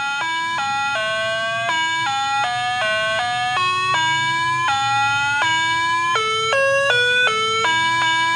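Spooky bell sound effect: a run of sustained, bell-like notes with many overtones, stepping from pitch to pitch two or three times a second in one unbroken tune.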